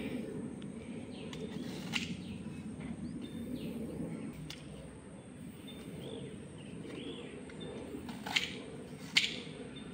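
Outdoor rural background with faint bird chirps over a steady low rumble, broken by three sharp snaps or knocks: one about two seconds in and two louder ones close together near the end.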